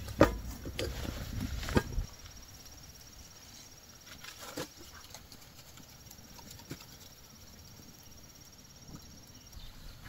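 Aluminium cooking pot and lid clanking and knocking as they are set onto a clay wood stove, a cluster of sharp knocks in the first two seconds. After that only quiet outdoor ambience with a few soft clicks and a faint high trill.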